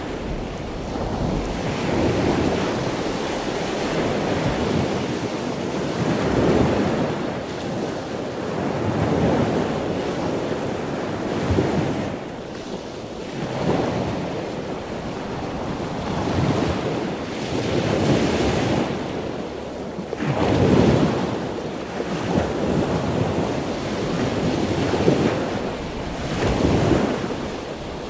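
Sea waves washing onto a shore, each surge swelling and falling away every two to three seconds, with wind.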